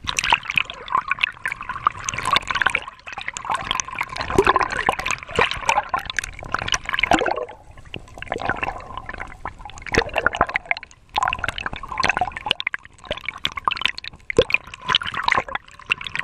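Seawater sloshing and gurgling over a waterproof action camera's housing as it dips in and out of the water at a kayak's side. It comes in irregular surges with short splashy spikes and a few brief lulls.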